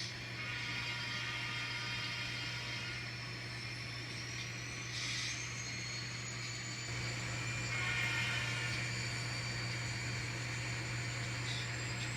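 Sound decoder of a model diesel locomotive playing its prime mover running, a steady low engine drone with a thin high whine that slowly rises in pitch. A brief hiss comes about five seconds in.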